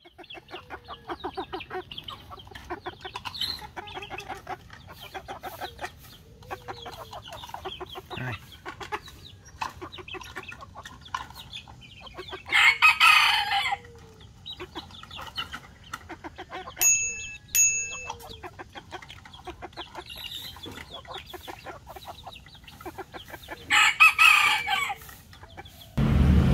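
Chickens clucking continuously, with a rooster crowing twice, about halfway through and again near the end.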